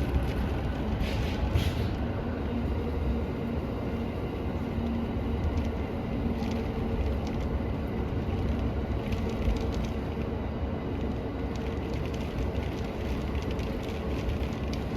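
JR Musashino Line electric train running slowly, heard from inside the passenger car: a steady low rumble with a faint steady hum and a few light ticks.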